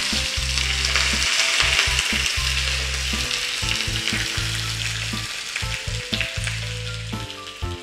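Fresh curry leaves sizzling and crackling in hot coconut oil with spluttering mustard seeds: a tempering (tadka) at full heat. The hissing gradually dies down near the end.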